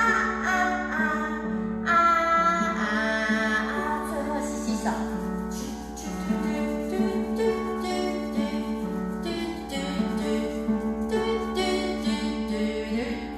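A song playing: singing over plucked guitar accompaniment.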